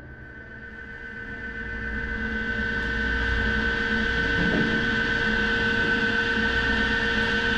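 Steady mechanical drone of an indoor shooting range's ventilation, with several fixed tones, swelling up over the first couple of seconds and then holding steady.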